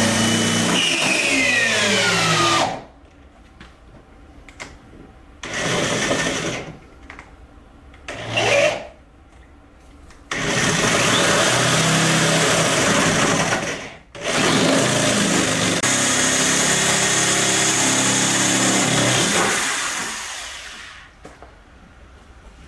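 Cordless drill running in several long bursts, with shorter pauses between, its motor pitch dropping as it winds down at the end of the first burst, while drilling holes or driving screws into the car's body panels.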